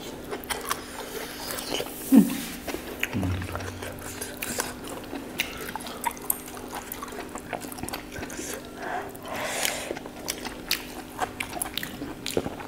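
Close-miked eating sounds: wet chewing, lip smacks and many small clicks as meat is bitten and chewed, over a steady low hum. About two seconds in comes a brief, louder sound falling in pitch, and a second, lower one a second later.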